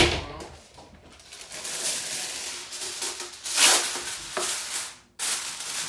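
Reynolds Wrap aluminium foil being pulled from the roll, torn and crinkled over a glass baking dish: a crackling rustle, loudest about three and a half seconds in. A single thump opens it.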